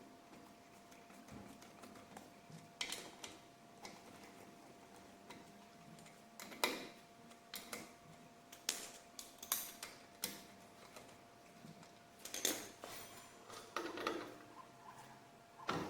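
Hand tools working on a car's anti-roll bar drop link: scattered light metallic clicks, taps and ratcheting, coming more often after about six seconds, over a faint steady tone.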